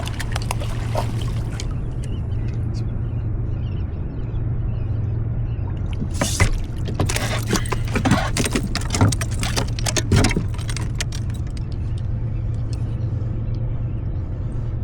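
Boat motor running with a steady low hum, and about six seconds in a burst of sharp clicks and rattles lasting several seconds as the hooked fish and rig are handled.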